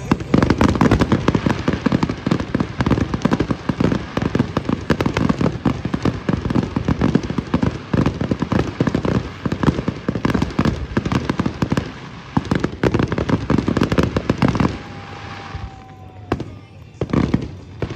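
Fireworks display: a rapid, dense barrage of bangs and crackles. It thins out about fifteen seconds in to a few last separate bangs.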